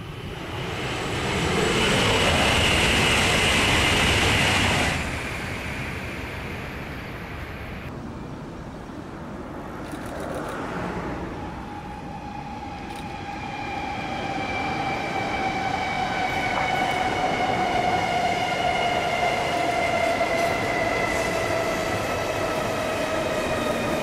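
N700S shinkansen trains on elevated track: first a loud rush of passing-train noise that stops abruptly about five seconds in, then a train approaching and growing louder, with a whine of several tones that slowly falls in pitch.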